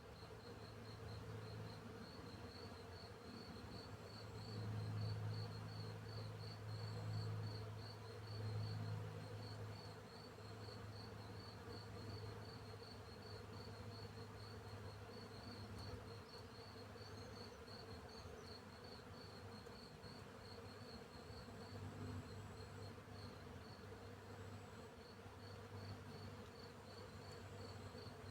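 A cricket chirps continuously in a rapid, even pulse, while a bee's low buzz drones underneath, swelling louder several times around the middle as it flies close by.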